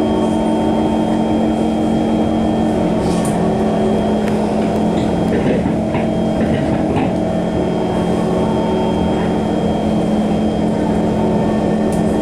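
Electric MRT train running: a steady, loud hum with several steady tones held throughout and a few faint clicks.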